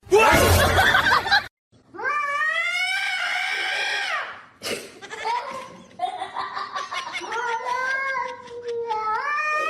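A cat yowling in long, drawn-out wavering calls, after a short harsh noisy burst at the start.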